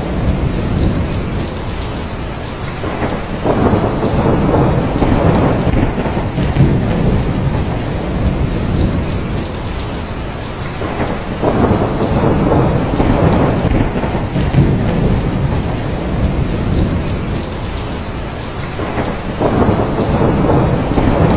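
Thunderstorm: heavy rain falling steadily with thunder rumbling. The rumble swells three times: a few seconds in, around the middle, and near the end.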